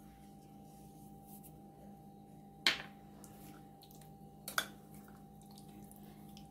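A metal spoon stirring salt into thick yogurt-and-spice chicken marinade in a plate. The spoon clicks sharply against the plate a little under three seconds in, then taps lightly twice about a second and a half later.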